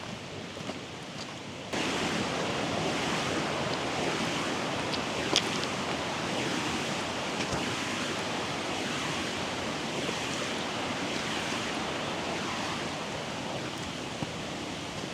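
Steady rushing of a fast mountain stream, which becomes abruptly louder under two seconds in, with a single sharp click partway through.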